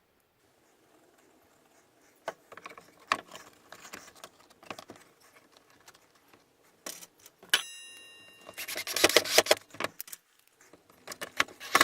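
Small metal parts jangling and clattering, such as woodworking screws being handled, with scattered knocks. About two-thirds of the way through there is a brief steady whine, and the loudest clatter comes in two spells near the end.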